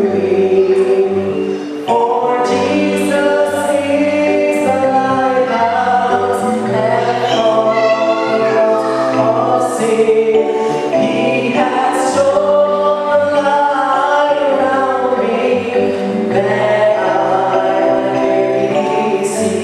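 Choir singing a gospel hymn in harmony, several voice parts moving together over a stepping bass line.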